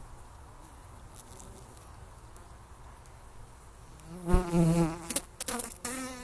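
Honey bees buzzing around an open hive, a steady hum. About four seconds in, a bee passes close, and for a couple of seconds the buzz is louder and wavers in pitch.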